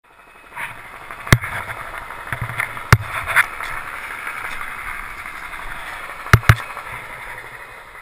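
Skis sliding and hissing through snow on a steep descent, heard close to the camera, with four sharp knocks: about one and a half and three seconds in, then two close together past six seconds.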